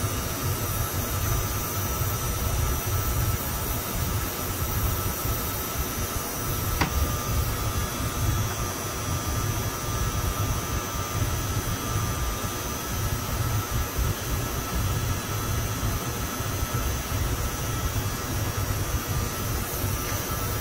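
Steady mechanical drone of running air-conditioning equipment: a wavering low rumble under thin steady whines, with a single sharp click about seven seconds in.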